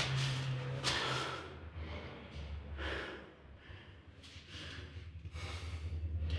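A man breathing heavily, with a few loud, rough breaths roughly a second apart, over a low steady hum.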